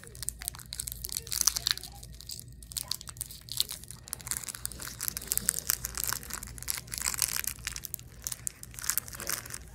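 Wrapper of a MrBeast Bar chocolate bar crinkling and crackling as fingers pick at it and squeeze it, in a quick run of sharp crinkles broken by short pauses.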